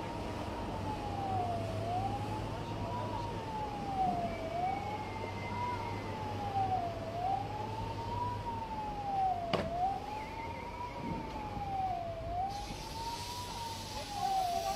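Wailing siren, its pitch rising and falling about once every two and a half seconds, sounding while a ship is launched on airbags. A single sharp click about ten seconds in, and a rushing hiss joins near the end.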